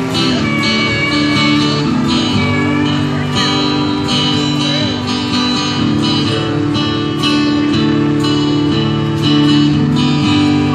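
Acoustic guitar strummed in steady rhythmic chords, played live through a loudspeaker.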